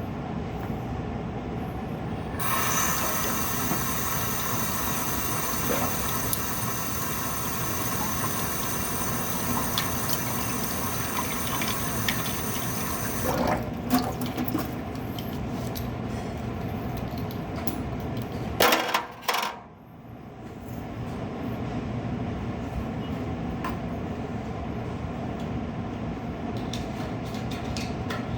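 Water running through a BFC espresso machine in a steady flow, with a brighter hiss for about ten seconds near the start and a brief break about two-thirds of the way through.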